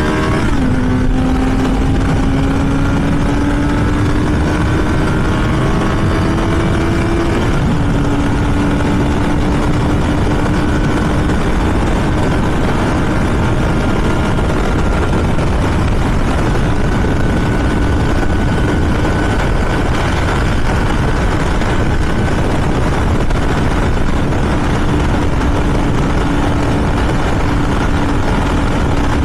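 Kawasaki Z900's inline-four engine pulling hard under acceleration, over heavy wind noise on the naked bike. It upshifts from second to third just after the start and from third to fourth about seven seconds in, each shift a sudden drop in engine pitch. After that it holds a steady drone at well over 90 mph.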